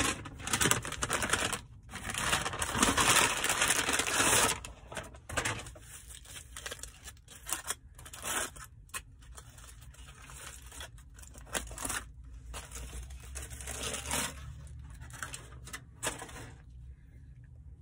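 Aluminium foil wrapper being torn open and peeled back from a burrito: loud crinkling and tearing for the first few seconds, then softer, scattered crinkles that die away near the end.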